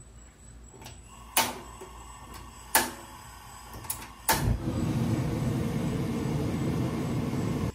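Gas burner being lit: a couple of sharp igniter clicks, then the burner catches about four seconds in and burns with a steady rushing sound, which cuts off abruptly near the end.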